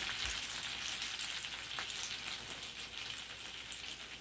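Unsalted butter sizzling in a skillet of freshly cooked penne, a fine crackling hiss that slowly dies away.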